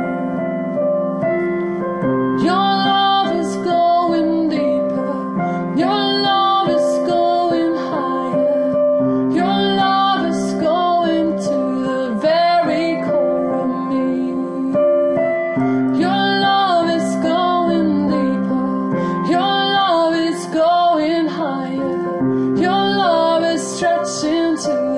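Female voice singing wordless, gliding melodic phrases over sustained piano chords, in spontaneous worship improvisation.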